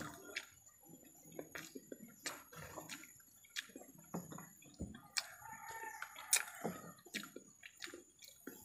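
Scattered soft clicks and taps as food is picked up by hand from ceramic plates. About five seconds in, a rooster crows once, for about a second and a half.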